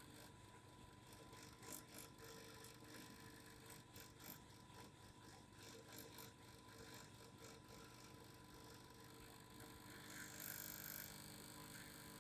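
Faint, steady vibrating hum with scattered light clicks, and a short hiss a little after ten seconds in.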